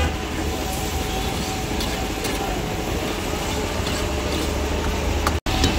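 Liver frying in oil in an open karahi over a wood fire, a steady sizzle. It cuts out for an instant near the end.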